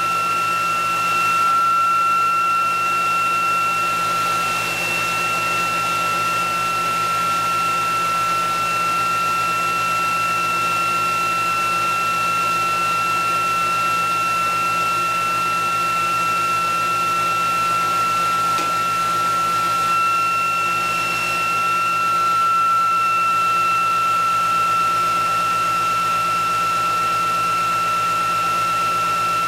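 Benchtop DC motor and coupled ReGenX generator running steadily at speed with the generator on load: a constant high whine with a second, higher tone above it over a steady motor hiss and hum.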